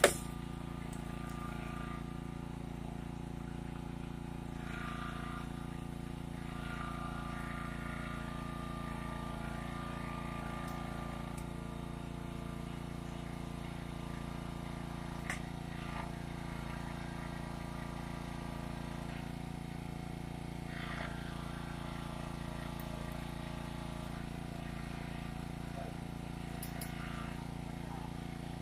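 A small engine driving a hydraulic rescue-tool pump runs with a steady drone. A sharp crack comes right at the start, and a faint click about fifteen seconds in.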